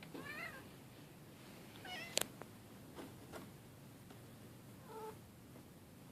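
Domestic cat meowing: three short wavering meows, near the start, about two seconds in and about five seconds in. A sharp click, the loudest sound, comes just after the second meow.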